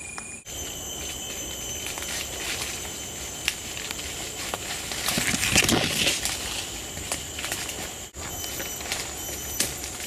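Footsteps crunching and rustling through dry leaf litter and undergrowth, busiest around the middle, over a steady high-pitched insect chorus.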